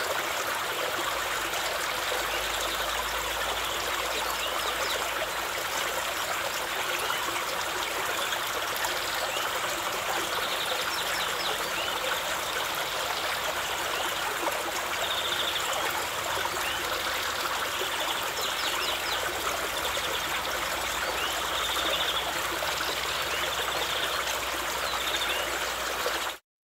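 Fast-running woodland stream flowing steadily, an even rush of water, with faint short high chirps every few seconds. It cuts off suddenly near the end.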